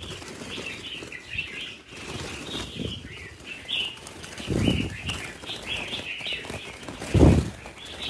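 Caged red-whiskered bulbuls flapping and giving short, scattered alarm chirps as a hand reaches in among them, with two louder flurries of wingbeats about halfway through and near the end.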